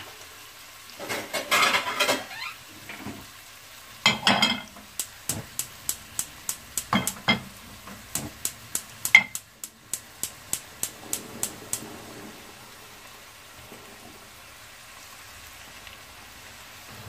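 Dried fish pieces, onion and green chillies frying in hot oil in a pot, sizzling steadily while a wooden spatula stirs them. Partway through comes a run of quick, regular ticks, about three a second, then only the quieter sizzle near the end.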